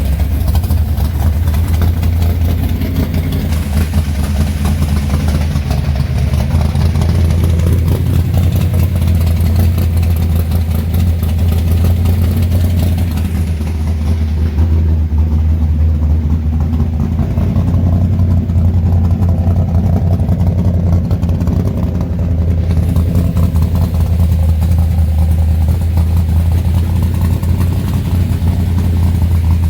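Big-block V8 of a 1972 Dodge Charger idling steadily through a newly installed exhaust, a deep, even rumble.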